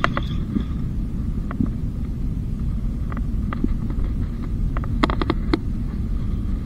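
Steady low wind rumble on the microphone, with scattered sharp clicks from a spinning reel as a hooked bluefish is fought. About five seconds in, the clicks come in a quick run of about five.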